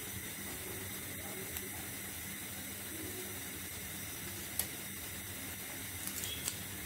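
Steady background hiss, with a sharp click about four and a half seconds in and a few small snips near the end as kitchen scissors cut green chillies.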